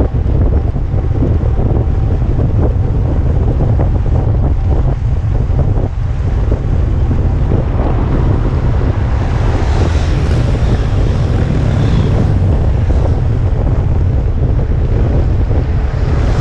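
Wind buffeting the action camera's microphone during a fast downhill run on a kick scooter: a loud, steady rumbling rush that turns hissier for a few seconds around the middle.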